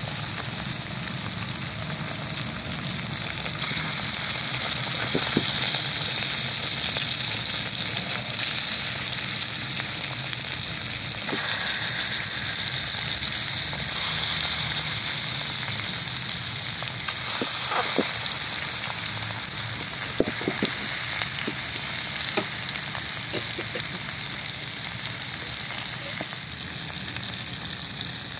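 Masala-marinated fish pieces frying in oil in a kadai: a steady sizzling hiss, with a few faint clicks here and there.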